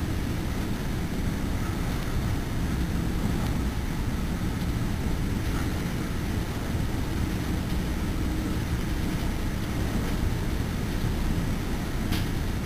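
Steady low rumble of an NJ Transit Multilevel passenger car running at speed, heard from inside the car: wheels rolling on the rails and wind along the body, with a faint click about midway and another near the end.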